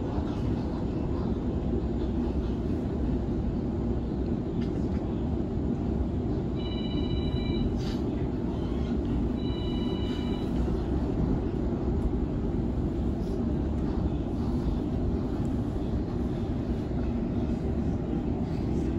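Steady low rumble of a Sydney Trains Waratah B-set electric train running along the line between stations. Twice, about a third of the way in and again a few seconds later, a short high-pitched electronic tone sounds for about a second.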